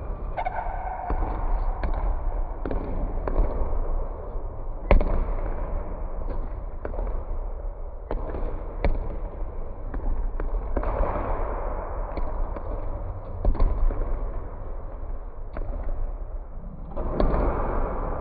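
Basketballs bouncing on a hardwood gym floor: irregular sharp thuds, the loudest at about five seconds and near fourteen seconds, over a steady low rumble.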